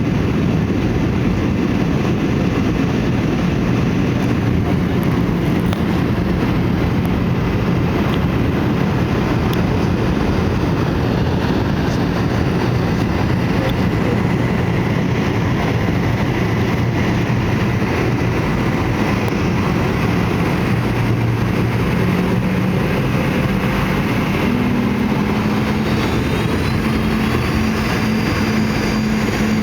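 Steady rushing cabin noise of a Boeing 717-200 in flight, its rear-mounted Rolls-Royce BR715 turbofans running with a low hum beneath the airflow. Near the end a faint high whine rises in pitch.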